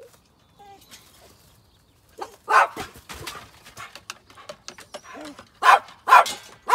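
A dog barking: short, sharp barks, one about two and a half seconds in and a quick run of three near the end.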